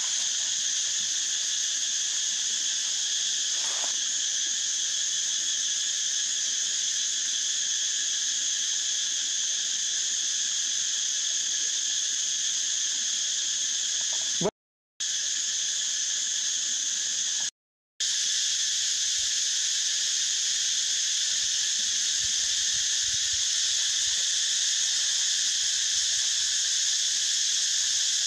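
Steady chorus of insects, a continuous high-pitched drone. It is broken twice by brief total silences about halfway through.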